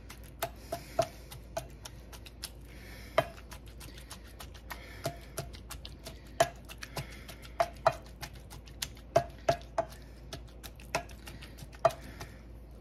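A potato masher pressing down into black beans and shredded chicken in a glass bowl. Each stroke knocks the masher against the bowl in a short, sharp click with a slight ring, irregular at about two a second.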